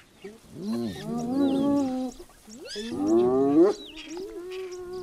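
Spotted hyenas calling: a string of long, drawn-out lowing and whining calls, the second sliding upward in pitch, the others held fairly steady, with faint high chirps over them.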